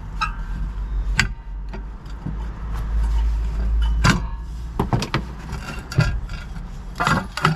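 Sharp metal clicks and knocks as the spring clips holding the glass in an old stove door are pushed out of the frame, a few separate strikes with the loudest about four seconds in. A low steady rumble runs underneath.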